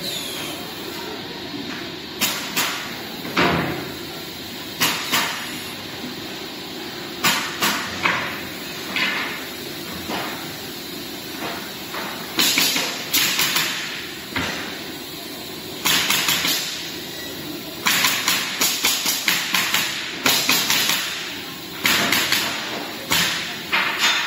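Pneumatic nail guns driving nails into wooden pallet boards. The shots come singly and in quick runs of several, over a steady background hum.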